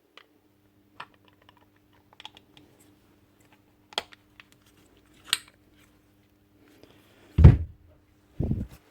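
Parts and tools being handled on a workbench during reassembly of a rotary hammer: scattered sharp clicks and clinks, then two heavier thumps near the end.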